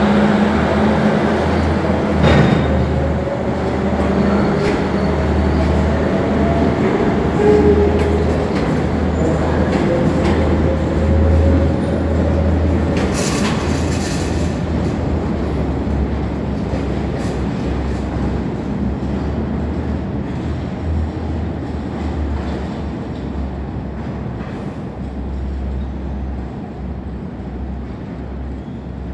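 New York City subway work train pulling out of the station: the steady rumble and rattle of its motor car and flatcars rolling over the rails, with a slowly rising whine and occasional sharp clanks. It fades as the train recedes into the tunnel.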